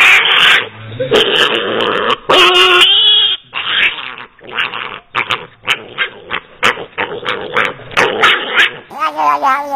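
Animal calls: several long, loud, harsh calls in the first three seconds, then a rapid run of short calls. A different, clearer pitched call begins near the end.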